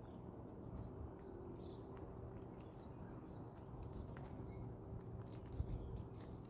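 Quiet, scattered clicks and crackles of peanut shells as a chipmunk handles peanuts and stuffs them into its cheek pouches, with a sharper click a little after five seconds. Faint bird chirps sound in the background.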